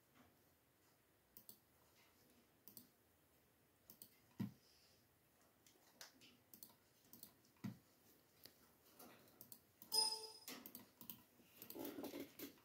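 Faint computer mouse clicks, scattered singly a second or two apart, with a short beep-like tone near the end.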